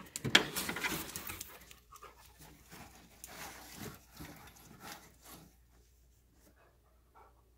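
A detection dog breathing in quick, noisy sniffs and pants with its nose in cardboard boxes while it searches for an odour. The breaths are loudest at the start and fade out after about five seconds.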